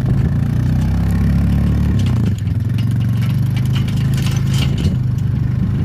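Four-wheeler (ATV) engine running steadily as it rides along, with a short dip in revs about two seconds in and some light rattling over the top.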